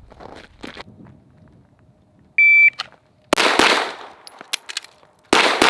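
A shot timer gives one short electronic start beep, and a 9mm Glock 17 pistol then fires two quick pairs of shots about two seconds apart.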